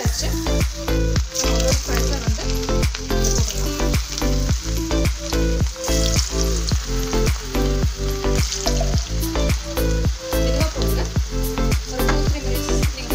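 Potato sticks deep-frying in hot oil: a dense sizzle with frequent crackles. Background music with a steady, heavy beat plays throughout.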